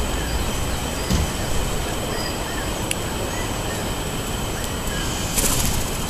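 Steady wind noise with faint, short bird chirps. Just before the end comes a brief flutter of wings as a bird takes off.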